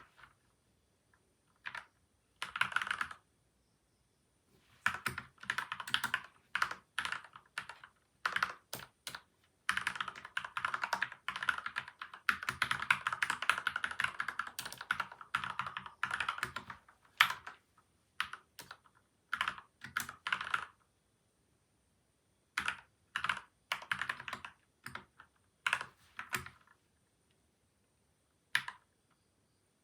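Typing on a PCL87 mechanical keyboard with lubed switches and stabilisers and tape and foam mods: a short burst, then a long run of steady typing, a pause, a few more bursts and a single keystroke near the end.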